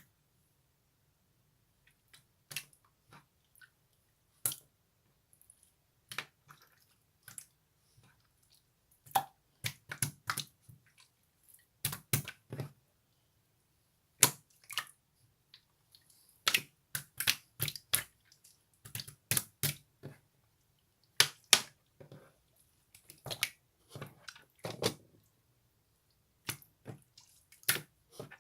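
Slime being handled by hand, giving irregular wet clicks and pops, sometimes several in quick succession, with short quiet gaps between.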